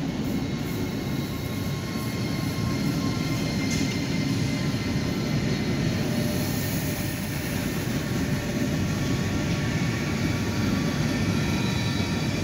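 Italo's Alstom AGV 575 high-speed electric train passing through a station: a steady rumble of wheels on rail with a faint steady whine above it as the carriages roll by.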